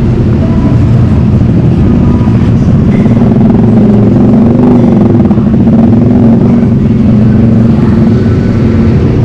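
Loud, steady road-traffic rumble with engine hum, mostly motor vehicles such as motorcycles, swelling slightly midway.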